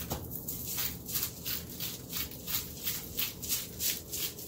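Hand-twisted salt grinder grinding pink Himalayan sea salt, a rhythmic rasping crunch at about three to four twists a second.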